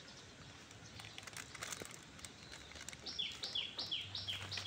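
A bird calling in a fast series of short, high notes that slide downward, a higher and a lower note in turn, about three pairs a second, starting about three seconds in.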